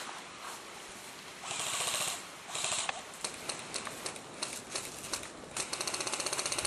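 Airsoft electric guns firing: scattered single sharp cracks, then, about a second before the end, a steady rapid burst of full-auto fire at around a dozen shots a second. Two brief rustling rushes come before the shooting.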